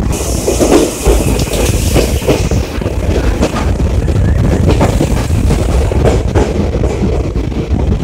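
Passenger train running at speed, heard from an open door or window: the wheels clatter over the rails and wind buffets the microphone. A high hiss in the first couple of seconds fades as the train leaves a tunnel.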